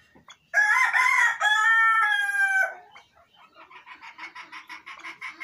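A cock bird crows once, loud and about two seconds long, in two parts: a wavering first part, then a longer held note that falls slightly. A rapid run of short clucking notes follows, about eight a second, growing louder.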